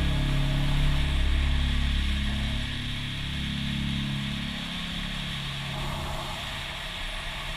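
BMW K1200S inline-four engine with an Akrapovic slip-on exhaust running under way, heard from the rider's seat through steady wind noise. The engine note weakens from about three seconds in, leaving mostly wind and road noise.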